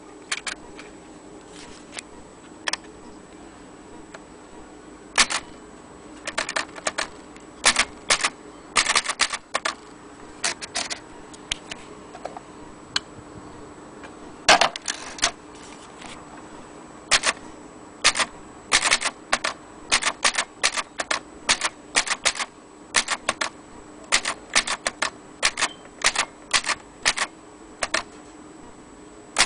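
Manual keys being typed on an Imperial Good Companion 3 portable typewriter: sharp mechanical clacks, a few scattered strikes at first, then quicker uneven runs of keystrokes from about five seconds in.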